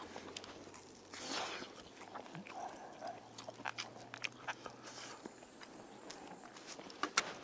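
Mouth sounds of someone chewing grilled sandfish, with scattered light clicks of chopsticks against a metal skewer, two sharper clicks near the end.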